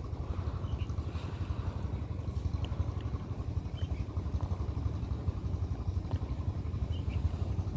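An engine running steadily, a low drone that holds level throughout.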